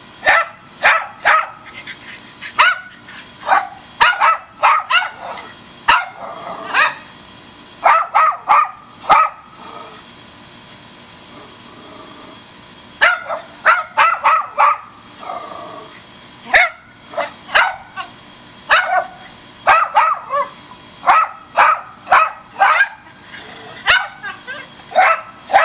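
Two rat terriers barking at a squirrel up a tree: strings of short, sharp barks in quick succession, with a pause of about three seconds partway through.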